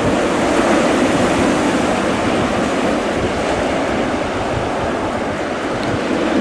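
Surf breaking on a sandy beach: a loud, steady rushing wash of waves.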